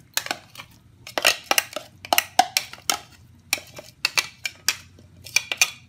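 Kitchen utensil clinking and scraping against a food chopper's bowl as the ground onion, garlic and dried shrimp are scooped out into another bowl: an irregular run of short clinks and knocks.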